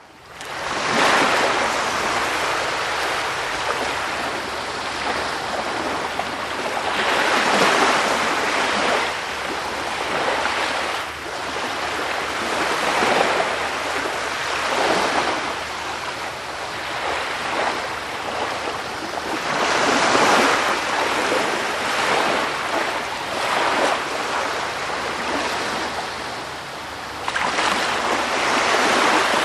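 Sea surf: waves breaking and washing in as a continuous rushing noise that swells and ebbs every few seconds. It fades in over the first second.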